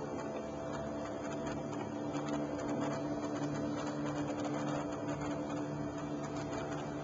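Goodyear blimp's propeller engines droning, a steady hum that holds one pitch.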